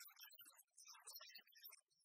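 Near silence with faint, irregular crackling.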